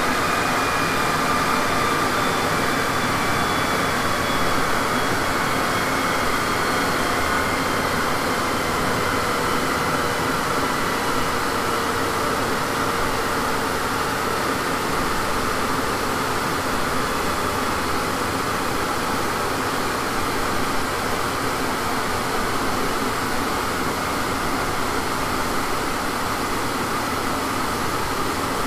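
Car coasting down on a chassis dynamometer with the clutch engaged after a power run, the rollers, tyres and drivetrain spinning down: a whine whose pitch falls slowly over a steady rushing noise. This is the coast-down stage in which the dyno measures drivetrain losses.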